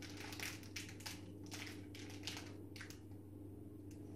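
Plastic candy wrapper crinkling and crackling as a chocolate bar is crushed inside it by hand, in faint irregular bursts that let up briefly near the end.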